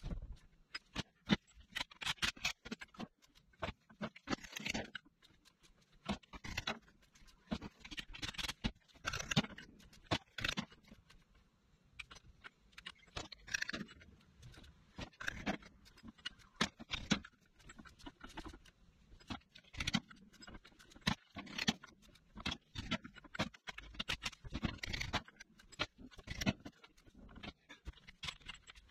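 Irregular metallic clicks, clinks and scrapes of hand tools and parts being worked on a Toyota differential centre at the bench.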